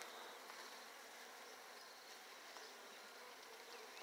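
Faint, steady buzzing of a honey bee colony in an opened hive.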